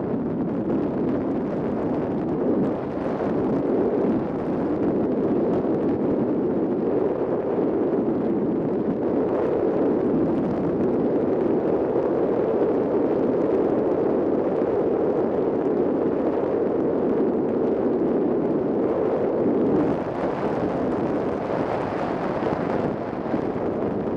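Wind noise from air rushing past a radio-controlled Ka8b glider model in flight, picked up by its onboard camera: a steady, loud rush with no engine note. It swells a few seconds in and eases about twenty seconds in.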